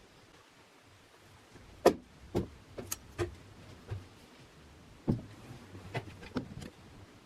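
A string of about nine sharp knocks and clacks at irregular spacing, like hard objects being set down or handled; the loudest come about two and five seconds in.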